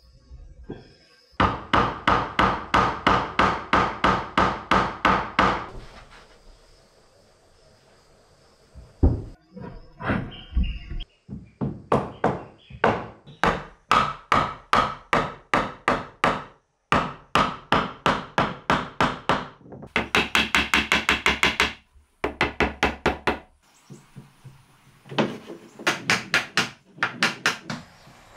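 Hammer knocking the interlocking joint of curved wooden door-ring segments home. The knocks come in several fast runs of about four blows a second, with short pauses between the runs and one quieter stretch.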